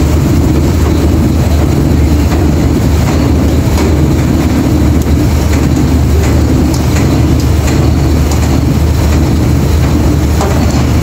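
A heavy diesel engine running steadily and loudly at a constant speed, with a few faint clicks over it.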